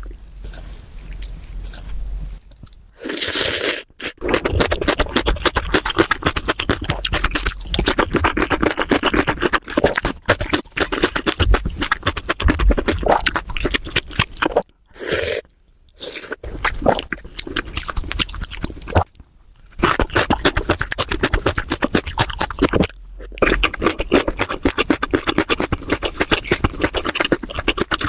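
Close-miked eating: loud crunchy chewing with rapid crackling mouth sounds, broken by a few short pauses.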